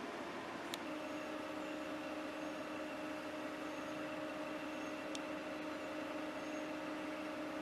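Steady mechanical hum holding two steady tones, which firm up about a second in, with a faint click just before that and another about five seconds in.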